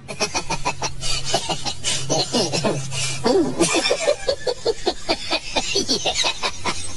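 Rapid cackling laughter, many short pulses a second without a break, over a low steady hum that fades out about three seconds in.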